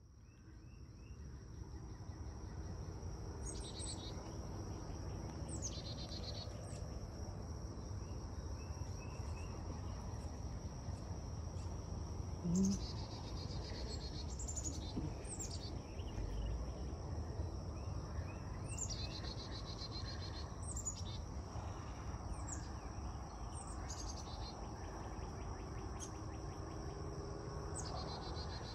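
Birds calling with short, high, down-slurred notes every couple of seconds over a steady high-pitched insect trill, with a low rumble underneath. A brief louder low sound comes about halfway through.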